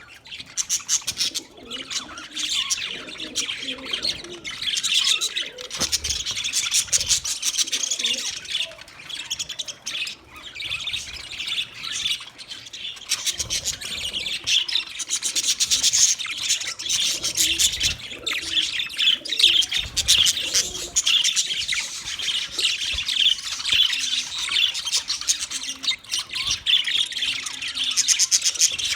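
Budgerigars chirping and chattering without a break: many rapid, overlapping high chirps.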